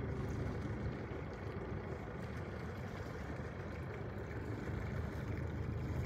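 Sailing yacht's inboard engine running steadily under way, a low, even drone.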